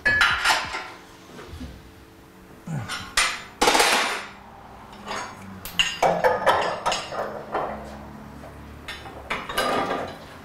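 Steel pulling chain and clamps clanking and rattling as a body-straightening chain is hooked up to a damaged car body: irregular sharp metallic clanks in bursts every couple of seconds.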